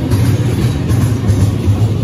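Double-stack intermodal freight train cars rolling past, a steady low rumble and hum of steel wheels on the rails.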